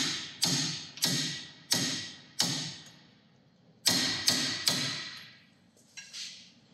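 Hammer blows on steel while a corroded track rod end is worked loose, each blow ringing briefly. Four come at an even pace, then after a short pause three more follow quickly, with two lighter taps near the end.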